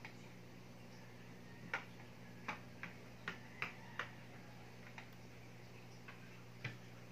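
Irregular sharp clicks and taps from a cat's paws and claws as it bats at a dangling string, about nine over five seconds, the loudest about two seconds in, over a faint steady low hum.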